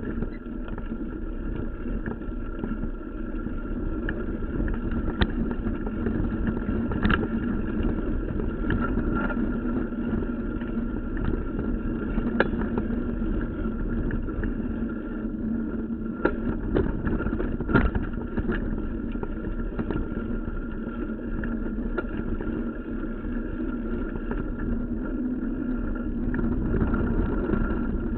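Mountain bike rolling fast over a dirt singletrack: a steady rumble of tyres and frame, broken by scattered sharp clicks and knocks as the bike rattles over bumps.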